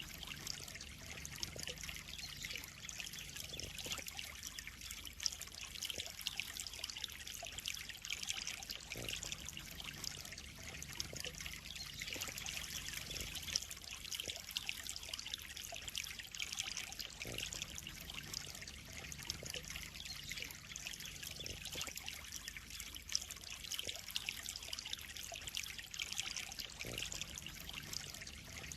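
Water trickling and splashing steadily into a koi pond, a continuous even hiss with a few brief sharper splashes.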